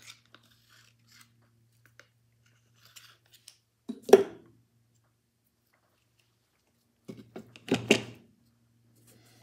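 Small metal clicks and handling noise as needle-nose pliers work the mainspring end onto the arbor inside a Victor III phonograph's spring barrel. There are two louder clatters, one about four seconds in and one near the end.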